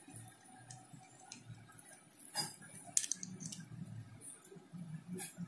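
Small scattered clicks and scrapes of pliers and brass wire being twisted tight onto a spark plug's terminal, with a couple of sharper clicks about halfway through.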